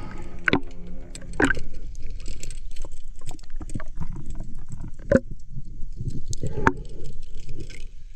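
Underwater recording: a dense crackle with four sharp knocks and metal clinks, the sounds of a diver handling a speargun with its stainless snap clip and float line.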